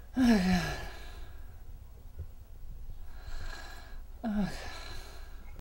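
A sleeping person snoring: two loud snores about four seconds apart, each falling in pitch, with a softer breath drawn in between.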